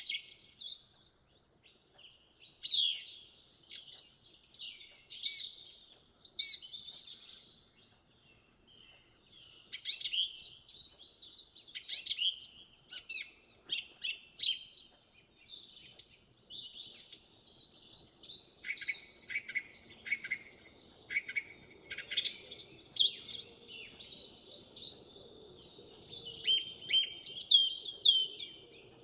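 House finches chirping and singing: a steady run of short, high warbled phrases with brief gaps between them.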